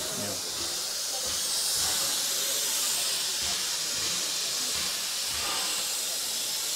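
Steady hiss of steam from the standing steam tank locomotive No. 24 Calbourne, an LSWR O2 class 0-4-4T.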